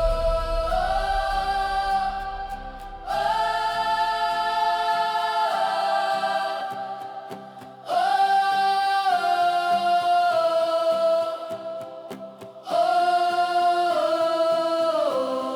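Hymn music with wordless choir-like voices holding slow, sustained chords, a new chord swelling in about every four to five seconds.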